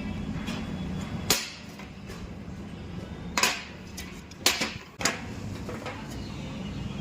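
Four sharp metal knocks, like hammer blows on metal, each with a short ring, over a low steady hum that drops away between the first and last knock.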